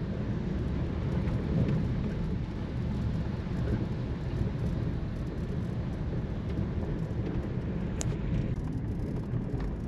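Car driving slowly through shallow water over a flooded river causeway, heard from inside the cabin: a steady low rumble with the hiss of water thrown up by the tyres. A single click about eight seconds in.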